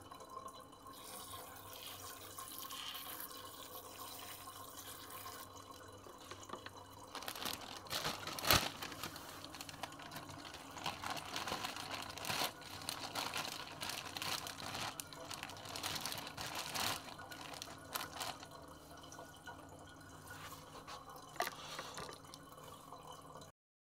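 Hand pump pressure sprayer misting water onto potting soil in short hissing sprays, then a clear plastic bag crinkling and rustling as it is pulled over the pot and gathered around it, with one sharp snap.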